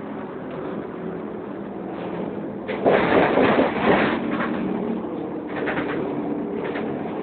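Dennis Dart bus's differential whining steadily on several pitches, heard inside the cabin while the bus is off the throttle, which the uploader finds odd. A loud rushing noise lasts about a second, starting about three seconds in, and brief rattles follow later.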